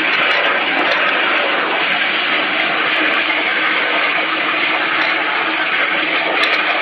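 Waterjet cutter jetting high-pressure water at a plate, a loud, steady hiss with spray while it cuts.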